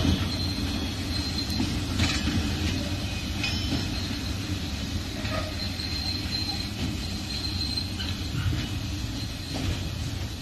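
Covered freight wagons rolling past: a steady rumble of wheels on the rails, with a few knocks at the rail joints and a thin, high wheel squeal that comes and goes.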